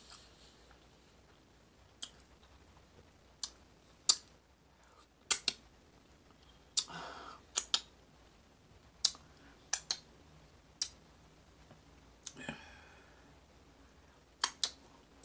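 Mouth sounds of eating: sharp, wet lip smacks and clicks at irregular intervals, about fifteen in all, while chewing, with a couple of softer wet smacking sounds between them.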